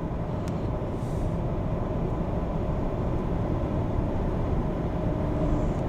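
Steady low rumble of a small tourist road train running, a wheeled 'train' that drives on the road rather than rails.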